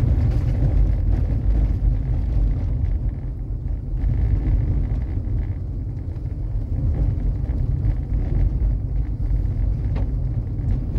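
Vehicle driving on a dirt road: a steady low rumble of engine and tyres, with a few faint knocks.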